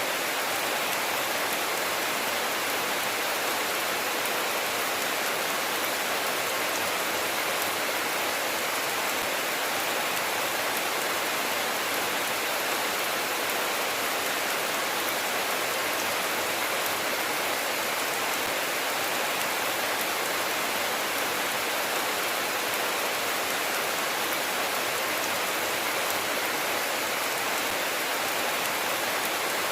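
Steady rain falling: an even hiss with faint scattered ticks of individual drops, unchanging throughout.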